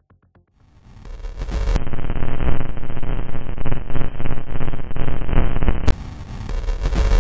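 Loud, harsh electronic noise texture that swells in about a second in, crackling and dense, with a short drop near six seconds before it returns.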